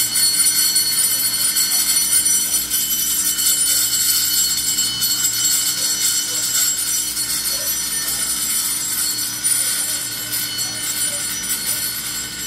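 Station platform departure bell ringing loudly and without a break: the warning that the train's doors are about to close before it leaves.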